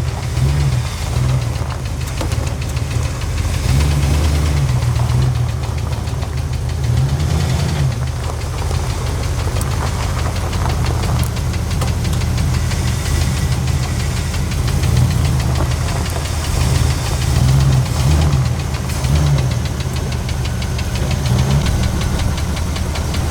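Ford 400 V8 in a 1980 F-350 running with a steady, rapid knock, a sign of no oil pressure. The owner thinks the oil pickup tube is probably plugged.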